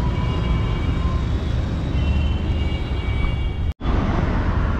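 Wind rumbling on the microphone over road and traffic noise while riding a scooter, a few faint high steady tones above it. The sound cuts out for an instant a little before the end.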